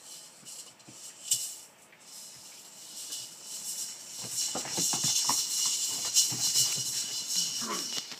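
Rough collie puppies scampering and tussling on the sheets covering the pen floor: rustling and crinkling with paw scrabbling and light knocks, growing busier and louder about halfway through.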